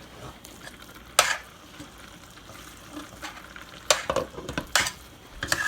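A spoon stirring food in a pot on the stove, knocking sharply against the pot about five times over a low sizzle.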